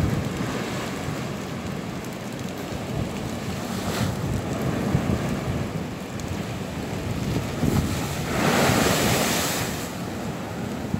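Sea waves breaking against a seawall at spring high tide and overtopping onto the paved promenade, with wind on the microphone. About eight seconds in, a bigger wave comes over and a louder rush of water lasts a second and a half.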